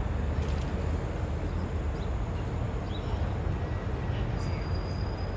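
Steady low rumble of city traffic, with a few faint short high chirps.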